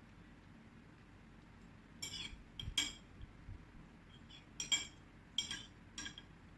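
Metal cutlery clinking against a plate: a series of light, ringing clinks, a cluster about two seconds in and another from about four and a half seconds.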